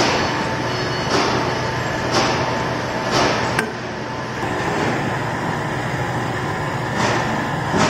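Universal testing machine running steadily with a low hum and a pulse about once a second as it pulls a rebar coupler specimen in tension, with a single sharp click about three and a half seconds in.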